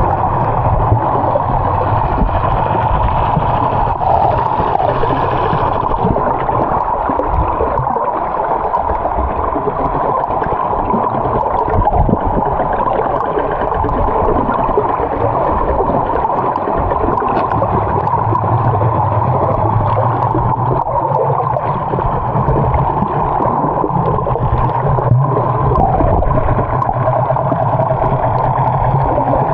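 Boat motor running with a steady rush of water noise, as from a catamaran underway.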